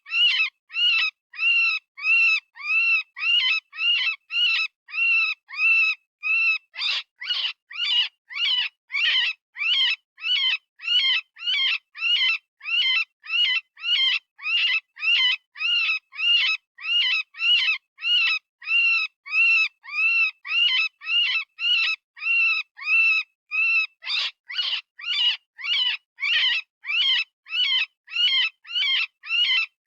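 Electronic rabbit distress call of the kind used for predator hunting: a steady run of short, high-pitched screams, about two a second, each rising and falling in pitch. Twice the cries turn harsher for a few seconds.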